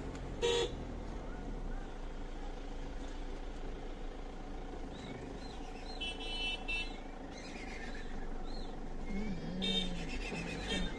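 Car engine running at low speed with steady road hum, a few short car-horn toots (one about half a second in and more near the end), and sheep or goats bleating near the end as the flock crowds the road.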